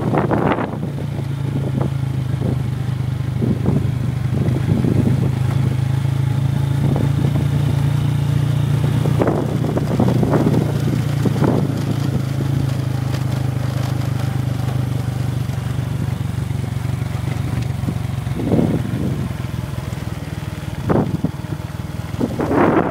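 Small motorcycle engine running at a steady speed, with repeated gusts of wind buffeting the microphone. The engine note drops lower about two-thirds of the way through.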